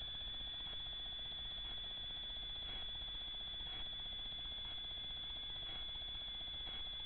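Steady high-pitched whine with a faint tick about once a second over a low hum, the trail camera's own recording noise; the cat makes no sound.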